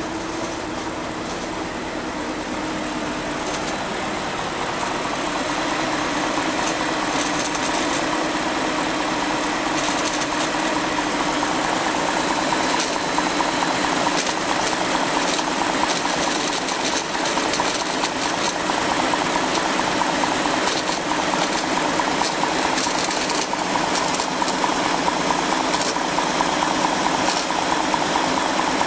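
A BMW N62 V8 engine runs steadily, carrying a strange added noise that the owner suspects comes from a bad bearing. The noise comes in a few seconds in and grows louder, with a higher-pitched component building up past the first third.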